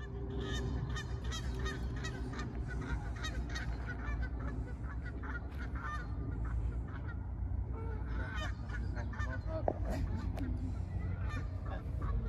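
Geese honking over and over, over a steady low rumble.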